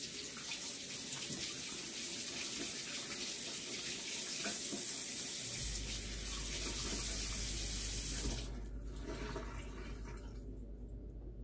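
Kitchen tap running water into the sink, a steady splashing hiss that stops about eight seconds in.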